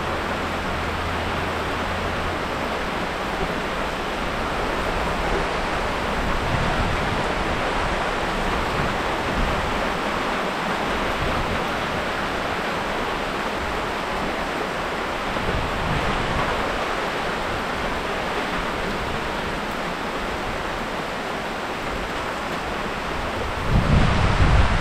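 Heavy rain falling steadily, an even, dense hiss. Near the end, wind hits the microphone with a low rumble.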